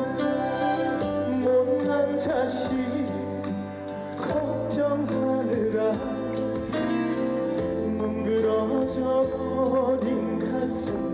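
Slow, tender ballad music, an instrumental passage of the accompaniment with guitar and strings.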